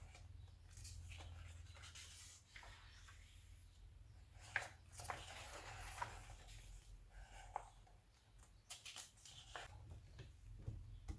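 Faint paper rustling and soft clicks from glossy magazine pages being handled and turned, over a steady low hum.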